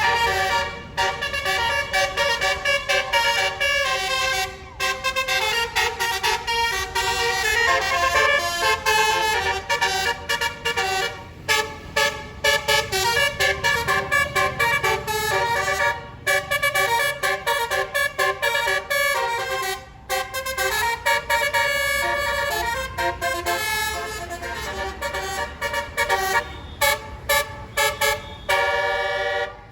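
Bus telolet basuri horn, a musical air horn, playing a fast melody of changing horn notes in phrases with short breaks between them.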